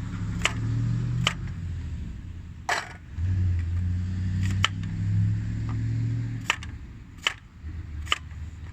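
Wood burning in a fire pit, crackling with sharp irregular pops over a steady low rumble.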